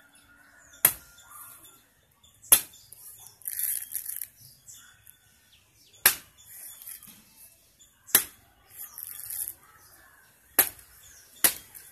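A knife chopping into the husk of a young yellow coconut held against a log: six sharp strokes at uneven intervals, the last two close together, with rustling between strokes and faint bird chirps.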